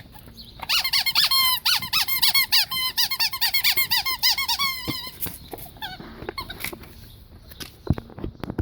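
Rubber squeaky dog toy being bitten and squeezed by a Pekingese: a fast run of squeaks for about four seconds, then fewer, scattered squeaks.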